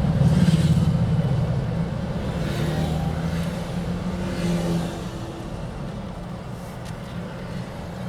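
Car engine and road noise heard inside the moving car, a steady low hum that eases off and gets quieter about five seconds in.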